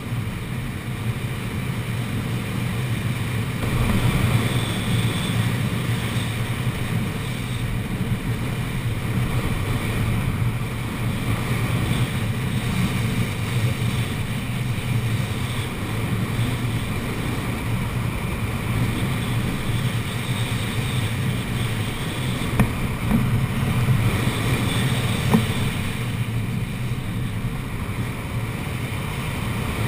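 Steady rush of airflow buffeting a wing-mounted camera on a hang glider in unpowered gliding flight, with a low rumble, and two short clicks a little past the middle.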